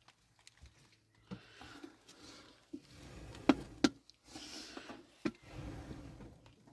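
Several sharp knocks and taps, two of the loudest close together about halfway through, with soft rustling in between.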